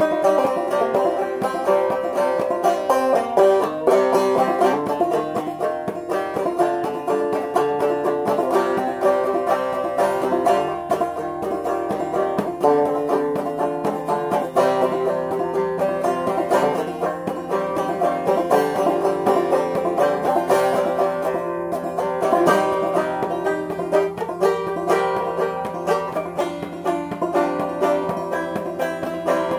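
Five-string banjo played clawhammer style in fCGCD tuning: a steady stream of struck notes and brushed strums.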